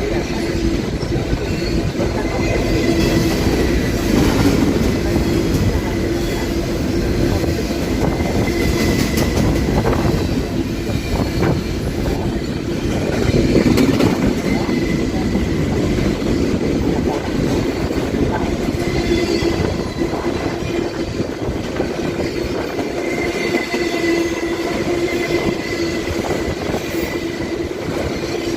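Railway train rolling past, a steady rumble of wheels on rail with a high wheel squeal that comes and goes.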